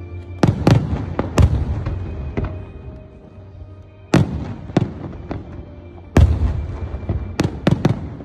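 Fireworks shells bursting overhead in a series of sharp bangs with rolling echoes, in clusters: several near the start, a loud one about four seconds in, and the loudest about six seconds in, followed by a quick run of three more.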